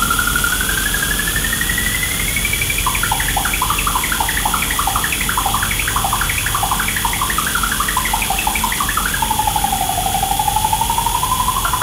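Electronic music: a synthesizer tone glides slowly upward, breaks about three seconds in into a rapid run of short blips jumping between pitches, then near the end swoops down and climbs again. Under it runs a steady low rumble, with a thin high tone held throughout.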